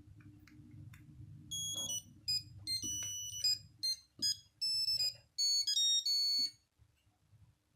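Nokia 8210 playing a monophonic ringtone: a melody of short, high, beeping notes from its small speaker, starting about two seconds in and stopping about six and a half seconds in.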